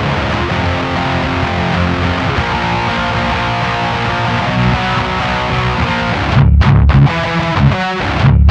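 Electric guitar played through a Diezel VH4 tube amplifier fitted with a ribbed-plate Telefunken 12AX7 preamp tube and Valve Art EL34B power tubes. The playing is continuous, then breaks into short, sharply stopped chords with brief gaps near the end.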